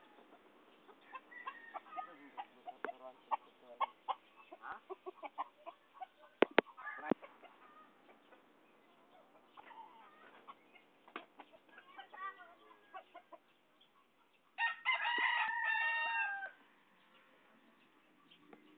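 Roosters making scattered short clucks and clicking sounds, then one rooster crows once, a two-second call, about fifteen seconds in.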